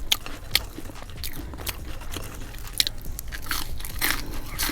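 Close-miked crunching and chewing of seasoned French fries, with irregular crisp crunches scattered through.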